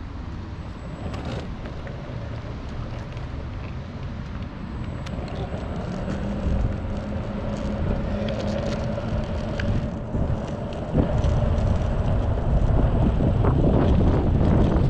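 Mototec 600W electric skateboard's single belt-drive motor humming and its wheels rolling over rough asphalt, getting louder as it picks up speed. Wind noise on the microphone grows over the last few seconds.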